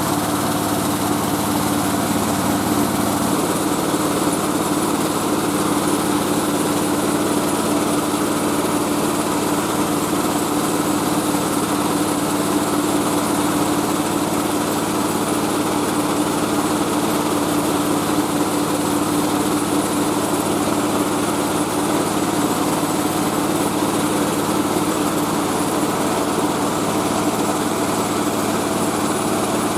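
Mobile rice-milling machine running steadily, its engine and milling drive making a constant loud drone with a steady tone through it.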